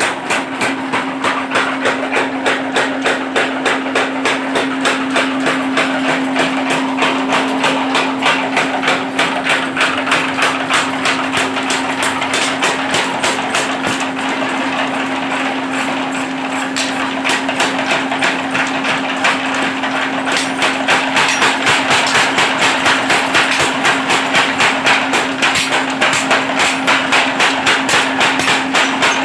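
Mechanical forging power hammer striking in a fast, even rhythm, about three blows a second, with a steady hum underneath.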